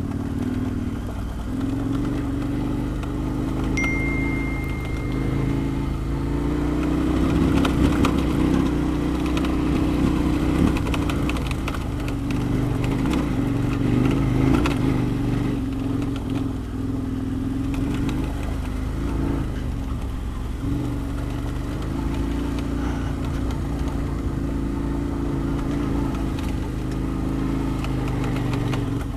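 KTM 1090 Adventure R's V-twin engine running on a loose, rocky dirt track, its note rising and falling a little with the throttle. Stones click and crunch under the tyres.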